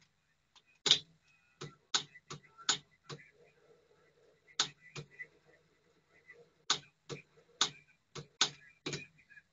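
Gear train of a Tesla MDS450 cassette deck running with its mechanism open, giving irregular sharp clicks and ticks over a faint motor hum. The freshly silicone-greased gears run a little noisy.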